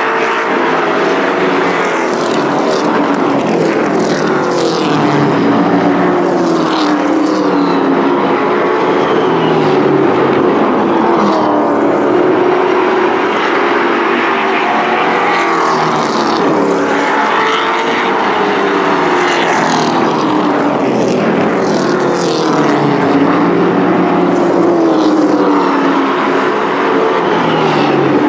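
Race pickup trucks' engines running at racing speed, the engine note rising and falling again and again through the laps.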